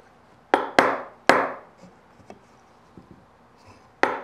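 Sharp wood-on-wood knocks: a wooden marking gauge tapped against the wood to shift its setting by 1.5 mm. Three knocks come close together about half a second in, then two more near the end.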